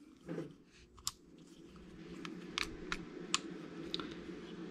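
Light metal clicks and taps of a Beretta Model 1917 pistol being handled and field-stripped, about half a dozen spread through, over a faint steady hum.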